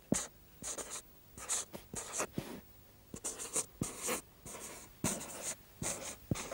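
Writing by hand on a board: a series of short scratchy strokes, each starting with a light tap as the tip meets the surface, with brief pauses between letters.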